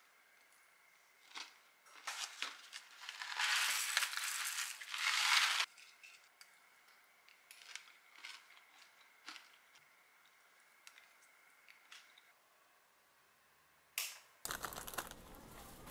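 A plastic granola pouch crinkling and rustling for about two seconds, then a few soft clicks of a plastic spoon in a glass mug of yogurt.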